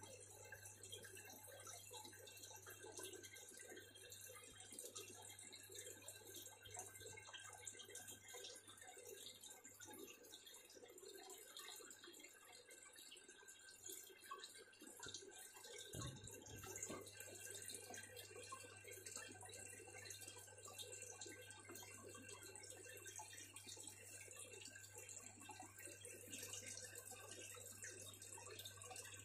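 Aquarium water trickling and dripping faintly over a steady low hum.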